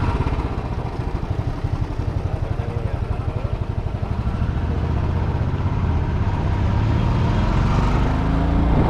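Motorcycle engine running under way, its pitch rising near the end as it speeds up.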